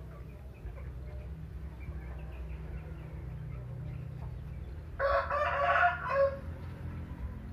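A rooster crows once, loudly, about five seconds in, over chickens clucking softly and a steady low hum.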